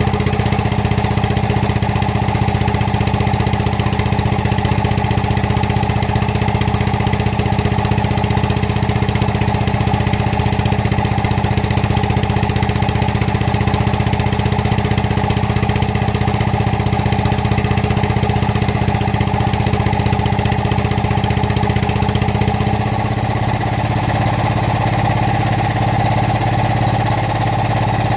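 Excavator's diesel engine running steadily at idle. About 23 seconds in, its note changes and it settles slightly quieter.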